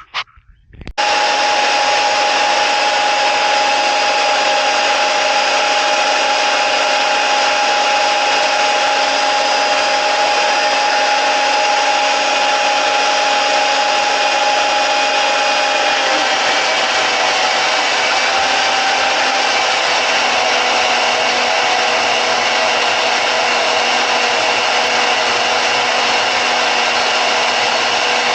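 Harbor Freight 10-amp deep-cut variable-speed portable band saw running with a steady motor whine, starting abruptly about a second in. Its pitch drops slightly about halfway through.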